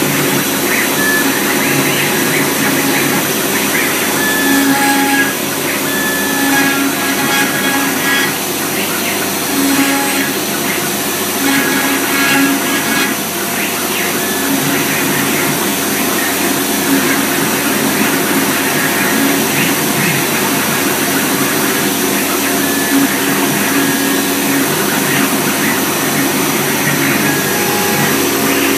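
CNC router spindle running and cutting into a wood board, over the steady hiss of dust extraction through the hose. Short pitched whines come and go as the head moves between cuts.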